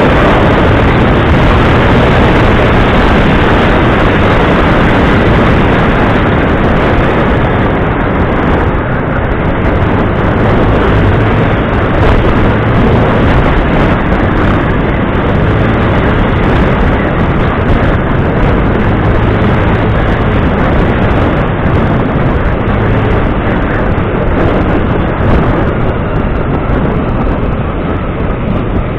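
A moving vehicle: loud, steady engine and rushing noise, with a low hum that comes and goes.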